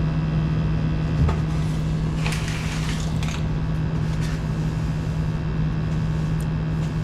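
Gas furnace running during a combustion test, a steady mechanical drone with a strong low hum. There is a short knock about a second in and a burst of rustling or scraping a second later.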